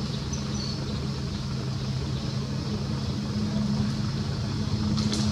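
Steady low hum of an idling engine, its pitch holding level throughout.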